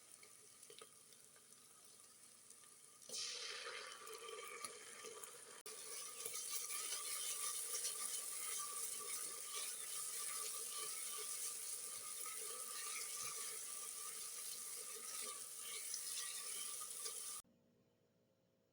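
Food cooking in a pot on the stove: a steady sizzling and bubbling of liquid. It gets louder about three seconds in and cuts off abruptly near the end.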